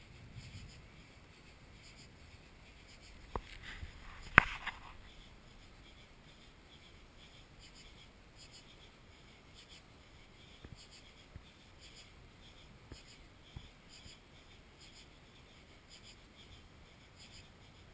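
Faint, steady pulsing chirps of night insects, muffled by a GoPro waterproof case, with two sharp clicks about three and four seconds in and a few softer ticks later.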